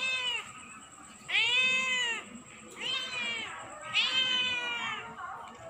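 Domestic cat meowing insistently, four long meows in a row, each rising then falling in pitch.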